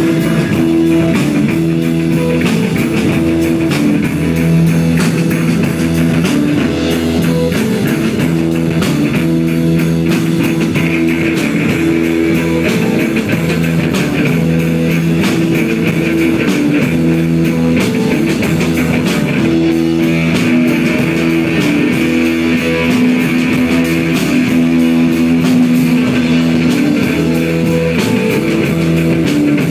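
Live psychedelic rock band playing: electric guitar and bass over a steady drum-kit beat, loud and unbroken, built on held, repeating notes.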